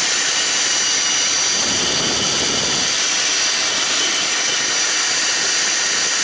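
Jeep Grand Cherokee engine running at idle, heard close in the open engine bay as a steady rushing hiss with a thin high whine.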